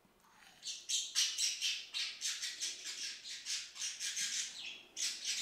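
A rapid run of shrill chirping squawks from an animal, about four a second, lasting about four seconds, with one more burst near the end.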